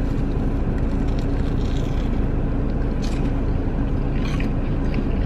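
Steady low hum of an idling car engine heard inside the cabin, with a few faint crunches from bites into crispy deep-fried corn dogs.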